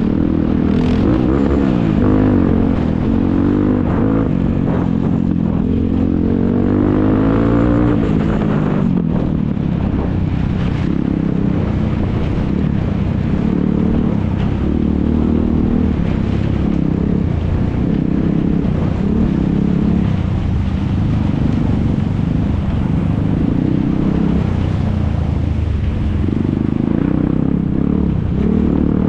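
Quad bike (ATV) engines running hard and revving. There is a long rising rev over the first eight seconds or so, then repeated rises and falls in pitch.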